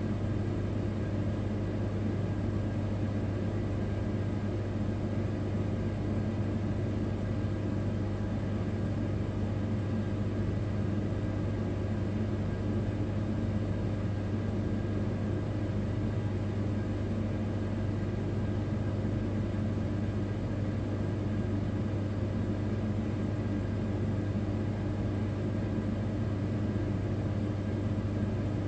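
Freight train locomotive running, heard from inside the driver's cab: a steady rumble with a constant low hum and a few faint steady tones above it, with no change in speed or load.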